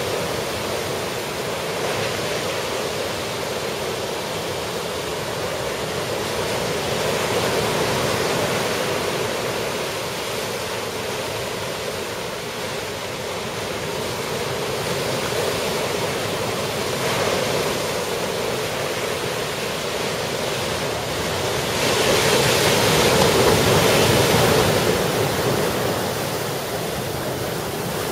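Ocean surf washing onto the beach: a steady roar of breaking waves that swells and eases, loudest about three-quarters of the way through.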